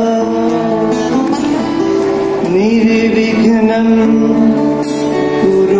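A group of men and women singing a devotional song in long held notes that glide from pitch to pitch, accompanied by acoustic guitar.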